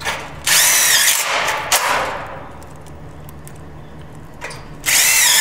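Cordless drill driving self-tapping screws into galvanized steel studs, run in two bursts of about a second each. Each burst carries a high motor whine that dips in pitch as the screw bites into the steel.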